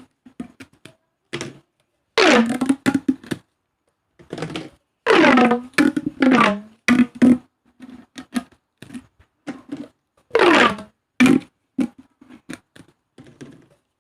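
Corrugated plastic pop tubes stretched and squashed, their ribbed folds popping in quick crunchy runs. Three long runs fall in pitch, at about two, five and ten seconds in, with scattered short clicks between them.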